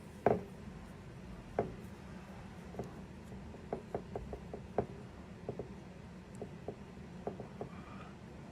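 Scattered light clicks and knocks of small metal parts being handled and set down on a workbench as an old Craftsman ratchet is taken apart, with a sharper knock just after the start and another about a second and a half in.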